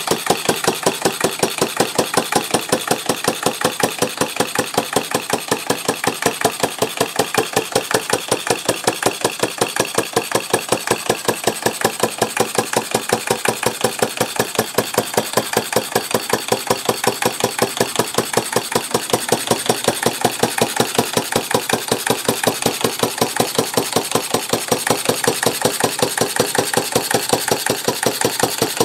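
Stover/Duro AC 1/2 HP air-cooled antique gas engine running steadily, firing in an even train of exhaust beats several times a second.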